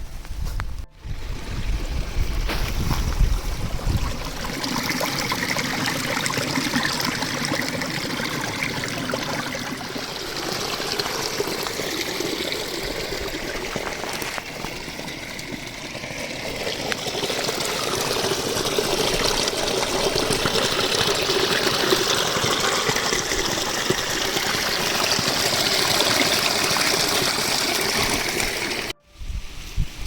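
Water of a small stream trickling and flowing. The sound drops out briefly about a second in and again near the end.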